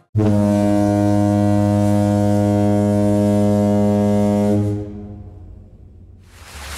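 A deep horn, like a ship's horn, sounds one long, steady blast that starts abruptly, holds for about four and a half seconds, then fades out.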